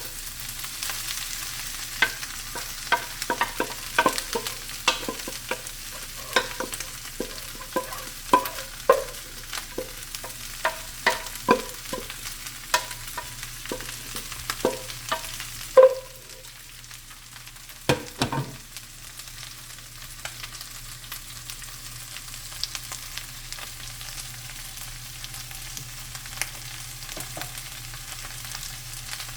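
Cut white corn kernels sizzling in hot grease in a frying pan while a spoon stirs them, with frequent knocks and scrapes against the pan. About halfway through the stirring mostly stops and the steady sizzle carries on alone, broken by a couple of louder knocks.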